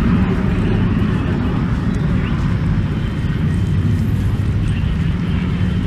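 Wind buffeting the microphone: a steady low rumble that stays at much the same level throughout.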